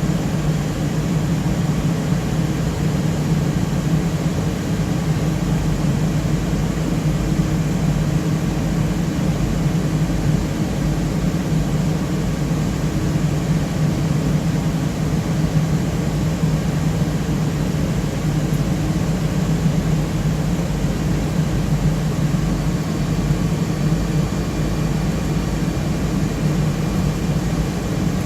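Steady, loud whir of the cooling fans in an HPE BladeCenter c7000 blade enclosure running, with a low hum under an even rush of air and no change throughout.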